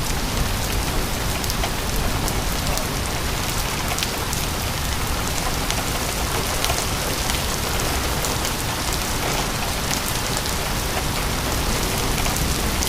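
Heavy thunderstorm rain pouring steadily, with scattered sharp ticks of drops striking nearby.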